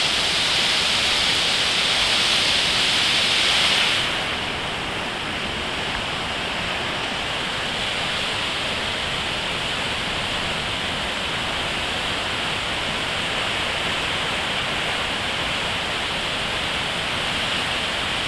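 A muddy river in flood rushing in heavy, churning rapids: a steady, loud wash of water noise. About four seconds in it turns slightly softer and duller, then holds steady.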